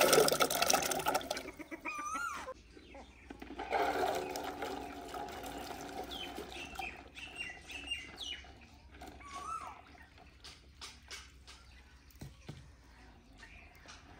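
Water splashing and sloshing as washed lasoora plums are handled and dropped into a pot of water, in two louder bursts at the start and about four seconds in, then smaller scattered plops and clicks. Birds chirp now and then.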